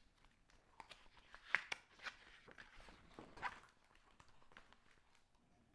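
Faint scattered taps and short rustles of a paper book being handled, as a page is turned; the clearest come about a second and a half in and again about three and a half seconds in.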